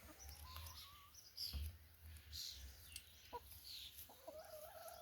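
Free-range chickens clucking faintly, with scattered short calls and a longer wavering call starting near the end.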